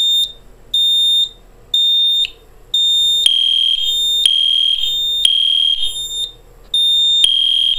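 Fire alarm horns sounding in a fire drill set off from an EST iO64 panel: a high-pitched horn beeps about once a second. From about three seconds in, a second, slightly lower tone sounds out of step with it, so the beeps nearly run together. The Genesis horn sync has not yet kicked in.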